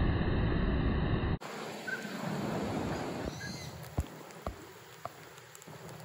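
A steady noisy rush cuts off abruptly about a second and a half in. After it comes quiet outdoor background with a few faint, short bird chirps and several light ticks.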